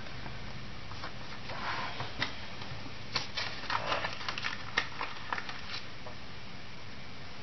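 Hands handling paper and stickers on a desk: soft paper rustling, then a quick run of small clicks and taps between about three and six seconds in.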